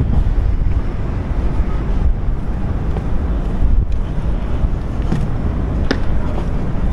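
Wind buffeting the camera's microphone in a low, gusting rumble.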